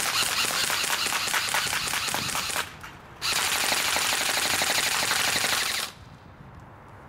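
Echo 1 Platinum M4 airsoft electric gun (AEG) firing two full-auto bursts of rapid clicks, each about two and a half seconds long, with a short pause between them.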